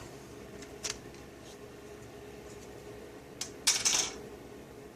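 Plastic laptop screen bezel being pried loose with a guitar pick, its clips letting go with a few sharp clicks and a short crackling cluster of snaps near the end.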